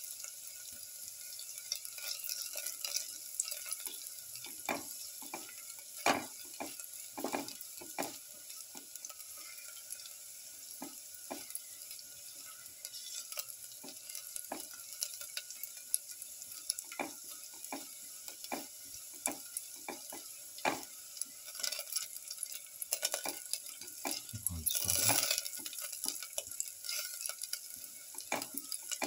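Shallots sautéing in hot oil in a metal pan: a steady sizzle under frequent scrapes and taps of a spatula stirring against the pan. About 25 seconds in there is one louder, longer burst of noise.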